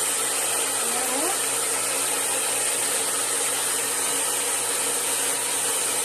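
Handheld hair dryer running steadily on long hair: a constant rush of air with a steady hum underneath.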